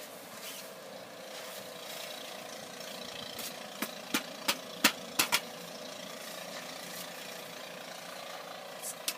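Car engine idling steadily, with about six sharp knocks about four to five and a half seconds in.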